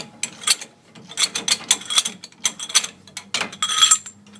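Socket ratchet clicking in irregular runs while backing off the 13/16 nuts on a leaf-spring U-bolt, with a denser, louder run of clicks near the end.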